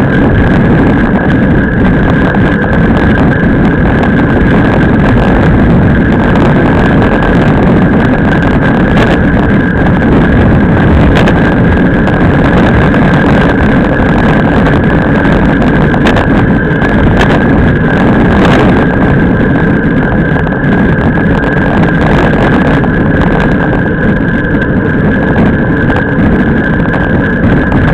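Steady wind and road noise on a camera microphone mounted on a road bike's front fork, riding at speed: loud rushing and rumbling from air and tyre on tarmac, with a thin steady whine running through it and a few faint clicks.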